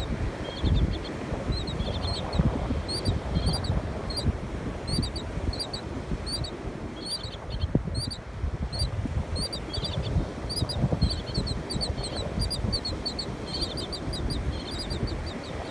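A bird calling over and over in short, high chirps, several a second, in quick runs without a break. Beneath it is a steady low rumble of wind on the microphone.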